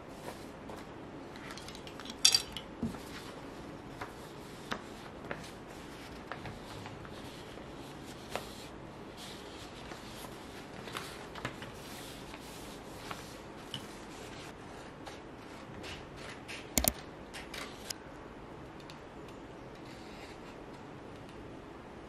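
Sheets of printer paper being handled, lifted and shuffled on a desk: soft rustles and light taps, with a louder crinkle about two seconds in and a sharp click later on.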